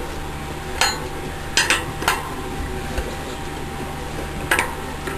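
Metal wrench clinking against a BMX front axle nut as the nut is tightened: a handful of sharp, uneven metallic clicks.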